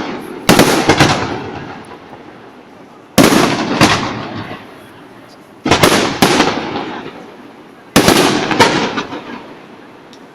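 Aerial firework shells bursting: four pairs of sharp bangs about two and a half seconds apart, each bang quickly followed by a second, and each pair fading into a long rolling echo.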